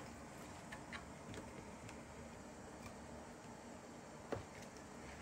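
Knife tapping lightly on a cutting board while meat is sliced into thin strips: a few scattered faint ticks, one slightly louder about four seconds in.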